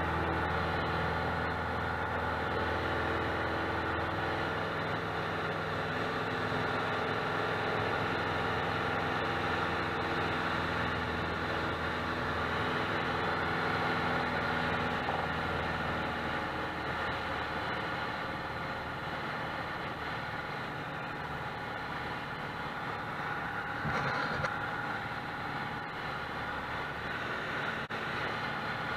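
Single-engine piston airplane's engine and propeller droning steadily as heard inside the cabin in cruise flight, while the fuel mixture is being leaned.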